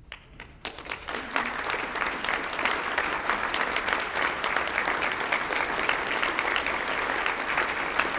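Audience applauding: a few scattered claps, then the applause swells within the first second or two and holds steady.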